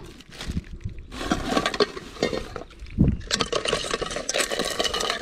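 Live blue crabs being put into a metal cooking pot: their shells and legs scrape and clink against the metal in two bouts of clatter, with a dull thump about three seconds in.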